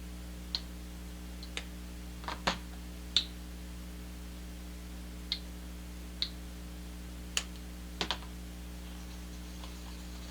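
Scattered light clicks and taps of plastic paint cups and a stir stick being handled while acrylic paint is mixed with Floetrol, about ten separate clicks over a steady low hum.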